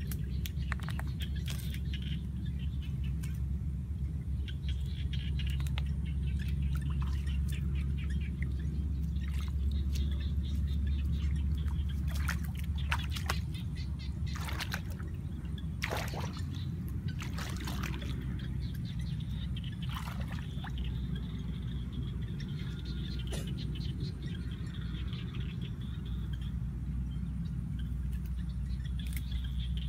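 Shallow water splashing and sloshing as a person wades through it and gropes with her hands, with a run of sharper splashes about halfway through, over a steady low rumble.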